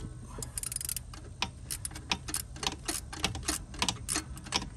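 Ratchet clicking in short irregular runs as a 5/16-inch 12-point socket on a straight extension turns out the bolt holding the turbo boost control solenoid bracket.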